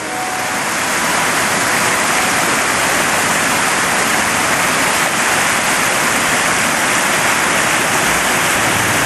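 Rocky stream rushing over boulders in small whitewater cascades: a steady, loud rush of water that fades in over the first second.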